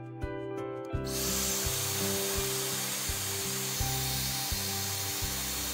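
Hair dryer blowing steadily, switched on about a second in, heating the phone's back glass to soften its adhesive. Background music with a steady beat plays underneath.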